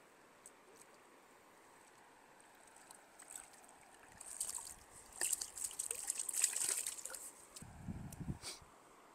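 Stream water splashing and sloshing in irregular bursts that start about three seconds in, with a brief low bump near the end.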